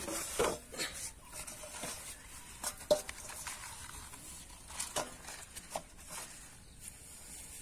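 Scattered light taps, clicks and rustles of hands handling a live eel over grass and a steel basin holding plastic bottles, the sharpest click about three seconds in.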